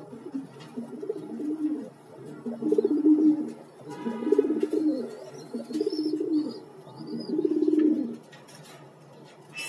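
Domestic pigeons cooing in a loft cage: a run of rolling, low coos, one after another, from about two seconds in until near the end.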